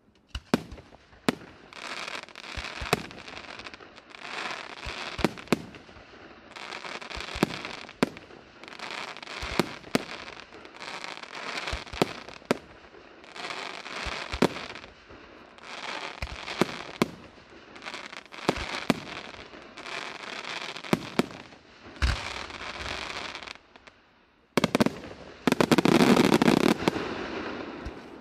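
Aerial firework shells bursting one after another, a sharp bang every second or two, each followed by about a second of crackling from the glittering stars. Near the end a louder, dense run of rapid bangs and crackle.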